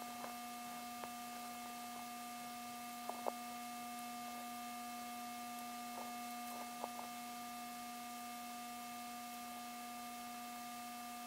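Steady faint electrical hum with a scattering of short, faint clicks and ticks from a Phillips screwdriver loosening the screws of a MacBook Pro's aluminium bottom case.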